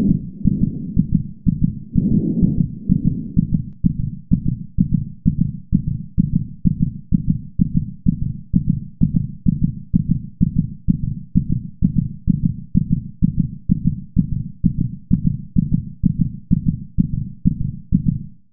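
Human heartbeat heard through a stethoscope, fast and regular at about two beats a second, with a couple of soft breaths near the start.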